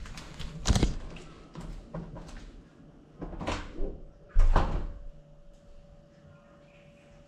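Knocks and clunks from the GoPro-carrying FPV cinewhoop being handled and set down on a hard floor. The loudest thump comes about four and a half seconds in, and after it only a faint steady hum remains.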